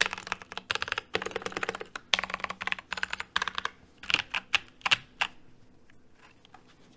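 Keychron K2 mechanical keyboard with unlubed Polaris Purple tactile switches being typed on: fast runs of keystrokes, thinning to a few separate presses about four seconds in, then falling quiet.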